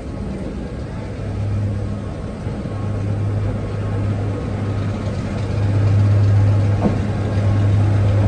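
BR Class 25 diesel locomotive's Sulzer six-cylinder engine running with a steady low hum as it draws slowly along the platform, getting louder as it comes closer. One short knock about seven seconds in.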